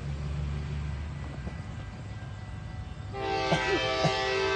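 Air horn of an approaching diesel passenger locomotive, taken for an EMD F40, sounding a held chord from about three seconds in. Two short falling tones cross it. Before the horn there is a low rumble of the distant train.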